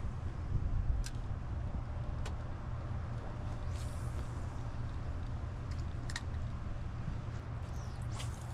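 Steady low mechanical rumble, with a few faint sharp clicks.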